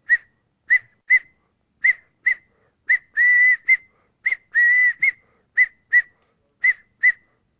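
A man whistling an imitation of the scaled (blue) quail's chip-churr call. Short, sharp whistled chips come mostly in pairs, about a pair a second, with two longer held notes in the middle.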